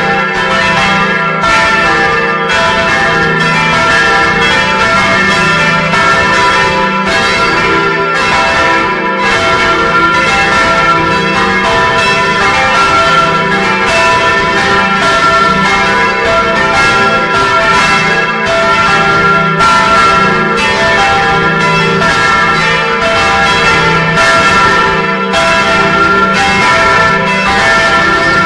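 Several church bells ringing together, heard up close inside the bell chamber. They are loud, with strikes coming again and again and overlapping, over a lasting hum.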